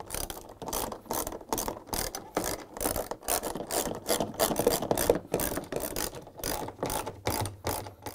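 Socket ratchet wrench with a 10 mm socket clicking as it runs in the bolts that join the two plastic washer tub halves, a quick, uneven run of clicks, several a second.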